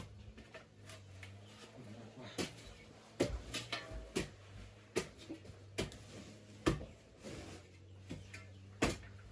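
Irregular sharp knocks and scrapes of hand tools, such as a hoe, at work repairing a kitchen hearth, over a steady low hum.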